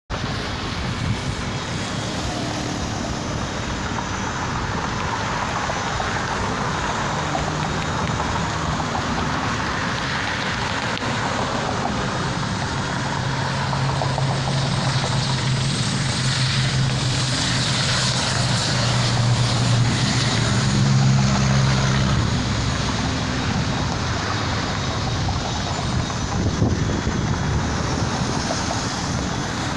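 Small propeller airplane's engines running at takeoff power: a steady low hum that builds to its loudest about two-thirds of the way through and then eases, over the rush of road traffic.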